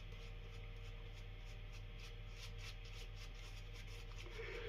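Faint, short scraping strokes of a slant safety razor cutting lathered stubble, over a steady low hum.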